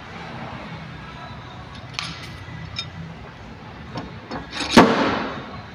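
Paintless dent repair glue pulling: a few light clicks as the slide-hammer dent puller is fitted to a glue tab on the car panel, then near the end one sharp, loud snap as the hammer is jerked and the tab pops off the metal, with a brief ringing tail.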